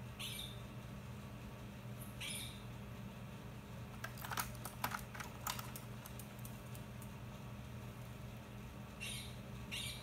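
Computer keyboard keys clicking in a quick cluster about four seconds in, as a ring-necked parakeet steps across them, with a few short high bird chirps near the start, about two seconds in, and twice near the end.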